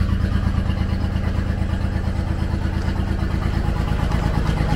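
Genie GS-3268RT scissor lift's Kubota DF752 gas engine idling steadily, warming up after a cold start in freezing weather, with a fast, even pulse.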